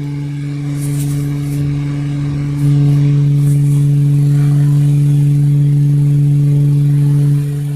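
Electric fan running on its high speed setting: a steady low motor hum, which grows louder about two and a half seconds in and drops back near the end.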